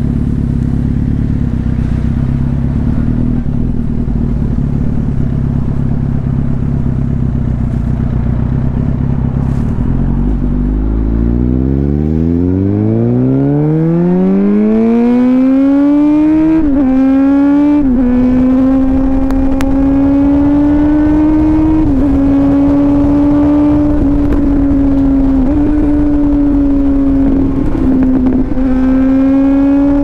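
Suzuki GSX-R1000 inline-four motorcycle engine running at a steady low note, then rising smoothly in pitch as it accelerates, from a little over a third of the way in. It then holds a steady high-revving note with a few brief dips.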